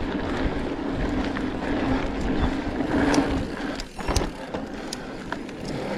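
Mountain bike riding fast over a dirt pump track: tyres rolling on the dirt with wind on the microphone, a steady buzz from the bike, and scattered rattles and clicks, with a sharp knock about four seconds in.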